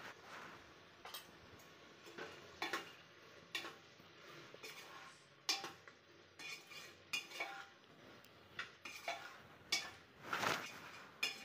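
A metal spoon stirring chopped vegetables in a pressure cooker, with irregular clinks and scrapes of metal against the pot, about one or two a second.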